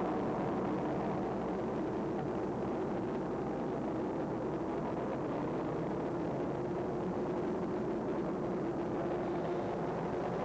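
SR-71 Blackbird's Pratt & Whitney J58 jet engines running on the runway, a steady rumble with an even hum through it.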